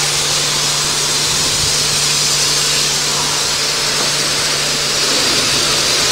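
Self-service car-wash pressure-washer wand spraying a continuous high-pressure jet: a loud, even hiss with a steady low hum under it.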